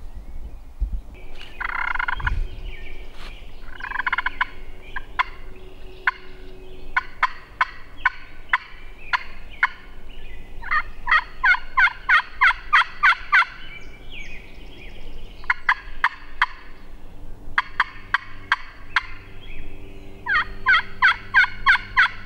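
Hand-worked turkey call imitating a hen, used to strike a gobbler: two softer, longer calls about two and four seconds in, then several runs of quick, evenly spaced yelps, about four or five a second, with short pauses between runs.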